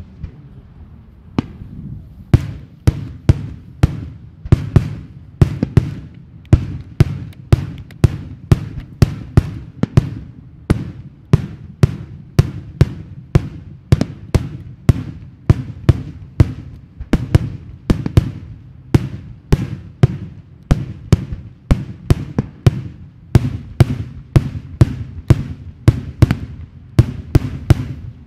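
Daytime aerial fireworks: a rapid, regular run of sharp bangs, about two a second, starting about a second in, over a continuous low rumble.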